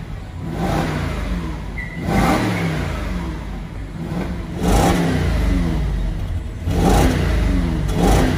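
Audi RS5's 4.2-litre V8 free-revved five times while stationary, through an Armytrix valve-controlled aftermarket exhaust. Each blip falls quickly back toward idle.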